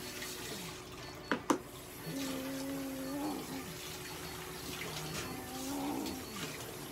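Japanese domestic cat giving two long, low, drawn-out yowls, each about a second and a half, that rise a little and drop away at the end. Two sharp clicks come just before them.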